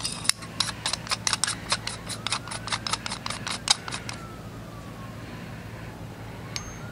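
Metal parts of a Gemtech GM-45 suppressor clicking together as it is put back together by hand: a quick run of sharp clicks, several a second, that stops after about four seconds. A faint siren rises and falls in the distance.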